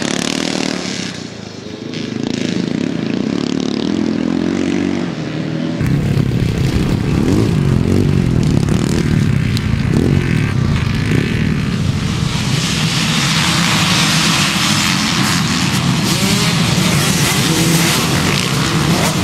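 Motocross motorcycle engines: one bike running steadily at first, then after an abrupt change about six seconds in, louder engine noise that thickens from about twelve seconds into a whole pack of bikes revving hard together.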